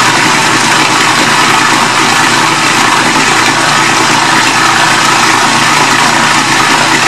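Electric food processor motor running loud and steady, blending ground fish with red curry paste.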